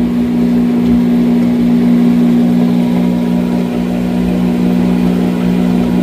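Whirlpool top-load washing machine on its spin cycle: the motor hums steadily with two low tones as the drum spins the wet clothes.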